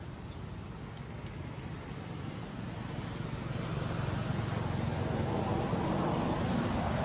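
A motor vehicle approaching, its low rushing noise growing steadily louder over the last few seconds. There are a few faint, short high ticks in the first two seconds.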